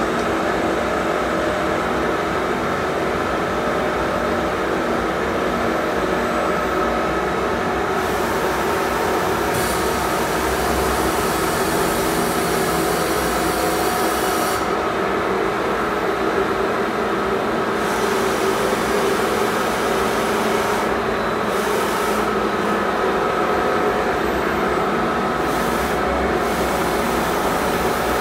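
Steady hum of running machinery, with several steady tones in it. Stretches of hiss come and go on top, the first about eight seconds in.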